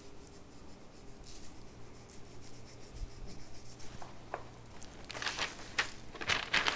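Gloved hands rubbing dry seasoning into raw wild boar rib roasts on paper: a few short scrubbing strokes in the last couple of seconds, after faint room hum.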